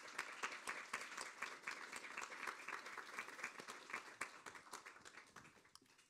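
Audience applauding at the end of a lecture, dying away near the end.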